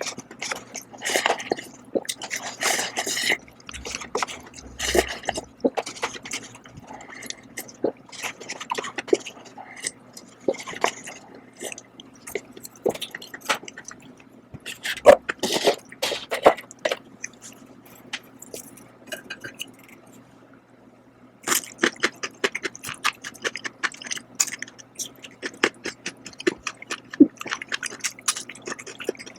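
A person eating Shin Ramyun cup noodles: wet chewing, slurping and mouth smacks in quick irregular bursts, with a short pause about two-thirds of the way through.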